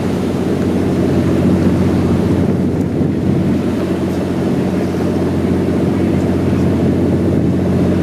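Boat engine running with a steady low drone, over a constant hiss of wind and sea.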